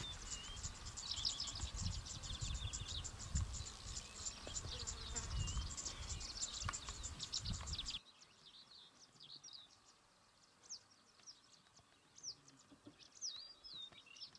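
Birds calling over a fast run of high chirps, with a low wind rumble on the microphone. About eight seconds in, the rumble and the fast chirping cut off abruptly, leaving scattered bird calls against a quiet background.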